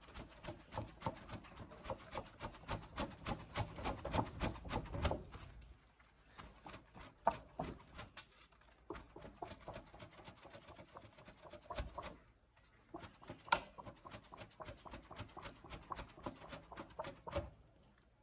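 A handheld fan waved quickly over a small charcoal stove to fan the coals, making rhythmic flapping strokes about three or four a second. The fanning comes in three spells, with short breaks about six and twelve seconds in.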